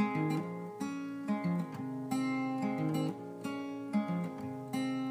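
Acoustic guitar strumming chords in a steady rhythm, an instrumental passage without singing.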